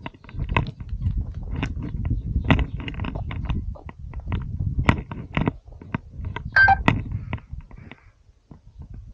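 Footsteps crunching and scraping on loose stones and scree of a steep rocky slope, with irregular clicks of stones over a low rumble. A short whistle-like tone sounds about two-thirds of the way through.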